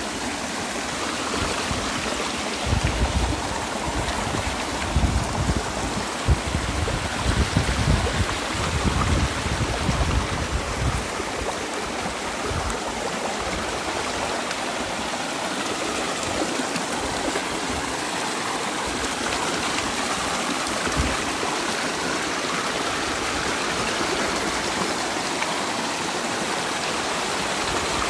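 Small mountain stream rushing and splashing in little cascades between granite boulders, a steady water sound. Between about three and eleven seconds in, low rumbling bumps come and go under it.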